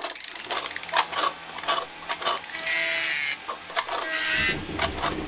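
Mechanical sound effects for an animated logo: a quick run of clicks and ratcheting, then a whirring tone in the middle and a whoosh near the end.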